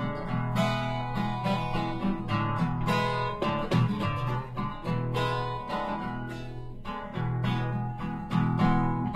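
Acoustic guitar strummed, chords ringing under a steady rhythm of strokes.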